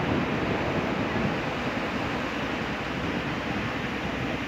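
Steady wash of ocean surf breaking and running up a beach.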